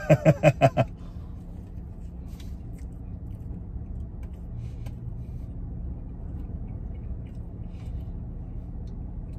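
A man laughs in a quick run of about seven bursts, then a pickup truck's engine idles with a steady low rumble, heard from inside the cab. Faint chewing clicks come now and then.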